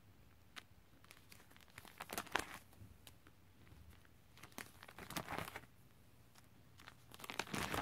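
Plastic sleeve pages of a card binder being turned, crinkling faintly a few times, loudest about two seconds in and near the end.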